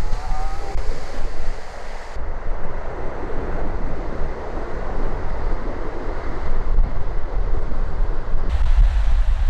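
Wind buffeting the microphone over the wash of sea water, a steady noisy rush with a heavy low rumble.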